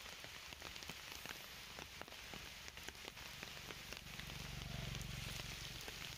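Light rain pattering on forest leaves, with scattered sharp drips throughout. A low hum joins about halfway through and fades near the end.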